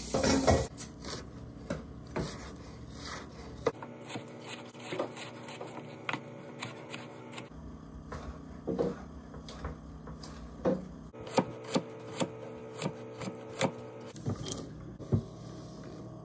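Knife chopping cucumber on a wooden cutting board: irregular knocks of the blade striking the wood.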